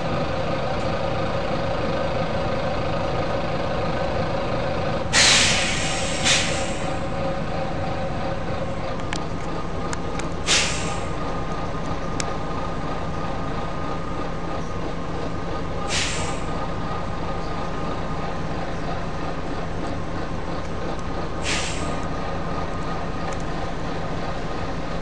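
Volvo B9TL bus's diesel engine running steadily, with five short hisses of compressed air released from its air system, the first and loudest about five seconds in, the rest spaced a few seconds apart.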